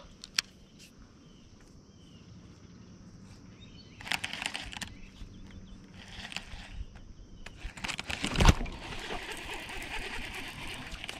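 Handling noise from a fishing rod and baitcasting reel: scattered clicks and rustling, with a sharp knock about eight seconds in, then a few seconds of steady rustling.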